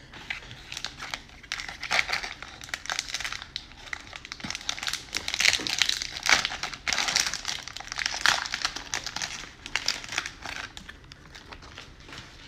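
Plastic wrapper of a Donruss baseball card cello pack being crinkled and torn open by hand. It makes a dense run of crackling rustles that is loudest around the middle and dies down near the end.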